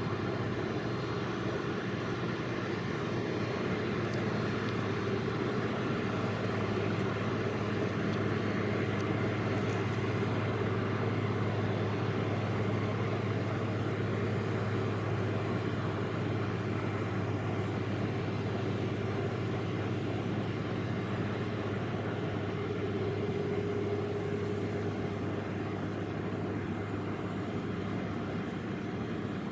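Boeing 777-300 airliner's jet engines running at taxi power: a steady low drone with a hum, swelling a little partway through.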